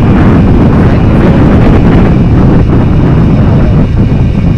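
Yamaha DT100 single-cylinder two-stroke engine running while the bike is ridden, largely buried under heavy wind buffeting on the microphone.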